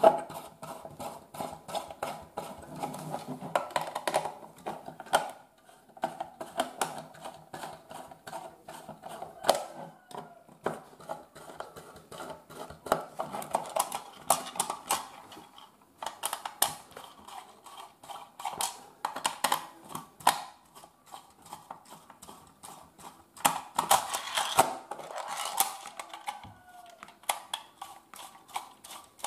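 Small screwdriver turning the screws out of a plastic extension board's cover: a dense run of small clicks and scrapes of metal on screw heads and the plastic case, with a faint creak between them.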